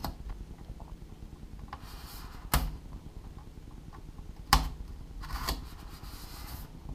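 Razor blade cutting down through the carbon-skinned foam core wing, hard going through the unidirectional carbon: faint scraping strokes with two sharp clicks about two seconds apart.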